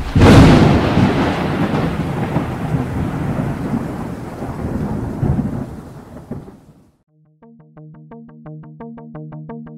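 A sudden loud thunderclap that rolls into rumbling thunder and fades away over about seven seconds. After a brief gap, synthesizer music starts with a quick, even pulse.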